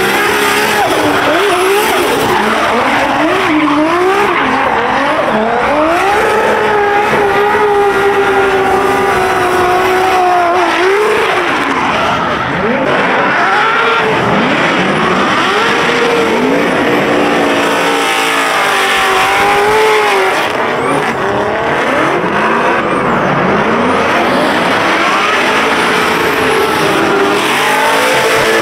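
Several drift cars drifting together: high-revving engines rising and falling in pitch, over and across one another, with tyres squealing.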